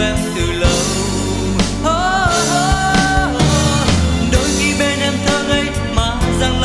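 A Vietnamese pop love song playing, with a drum beat and a melody line held with vibrato about two seconds in.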